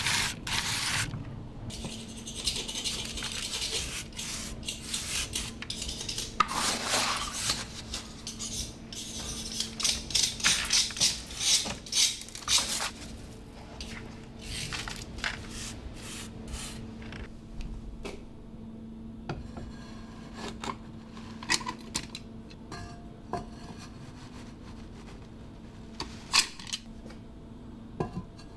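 A trowel scrapes and levels coarse, gritty drainage mortar in plastic mortar rings, in repeated rasping strokes for roughly the first half. After that come scattered clicks and light knocks as the rings are handled and a tile is set down, over a faint steady hum.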